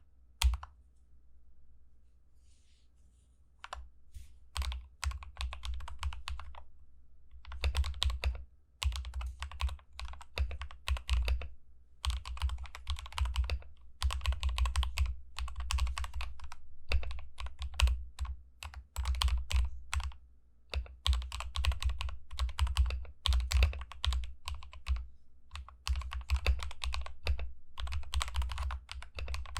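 Typing on a Tester68 mechanical keyboard fitted with lubed and filmed WS Aurora Pink switches, lubed stabilizers and XDA keycaps, as a sound test. One sharp click comes just under half a second in and a few scattered keystrokes about four seconds in, then fast runs of keystrokes with short pauses between them, each keystroke carrying a deep thump.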